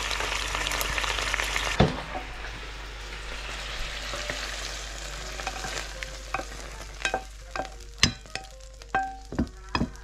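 Fiddlehead ferns sizzling as they stir-fry in oyster sauce in a nonstick pan; about two seconds in a knock comes and the sizzle falls to a fainter hiss. In the second half a spatula knocks and scrapes against the pan and a ceramic plate in a string of sharp, briefly ringing clinks as the ferns are served out.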